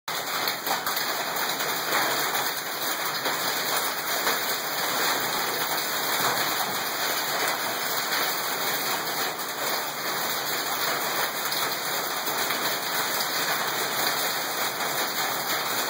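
Hail and heavy rain pelting a paved driveway: a dense, steady patter of countless small impacts.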